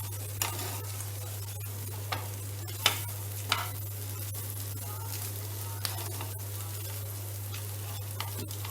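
Chicken pieces frying in oil in a pan, sizzling, while a spoon is stirred through them, scraping and clinking against the pan several times, loudest a little before 3 seconds and again about half a second later. A steady low hum runs underneath.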